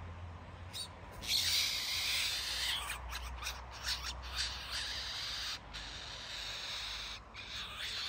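A red-billed blue magpie fledgling's harsh, rasping begging calls to its parents: one long run of rasping from about one to three seconds in, then shorter calls.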